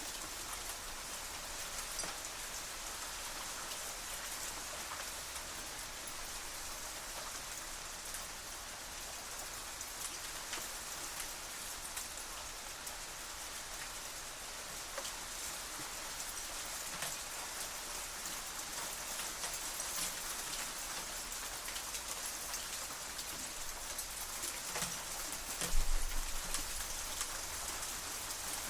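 Hailstones pelting metal shutters: a steady patter of many small sharp ticks and clicks, with one louder low thump near the end.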